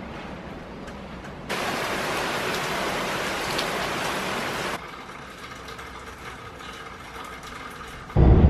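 Steady hiss of hurricane rain, louder for about three seconds in the middle. Near the end it gives way to the low rumble of a car on the road.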